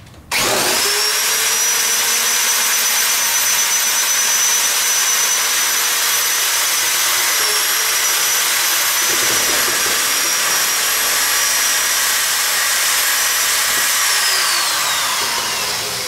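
Corded electric drill starting abruptly and running flat out, spinning a bundle of burning steel wool: a high steady whine over a loud rushing hiss. Near the end its pitch falls as the drill winds down.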